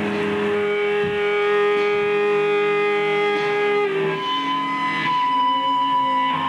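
Ambient drone of long held electric-guitar notes through effects pedals, with no picked attacks. About four seconds in, the low note drops away and a higher sustained note takes over.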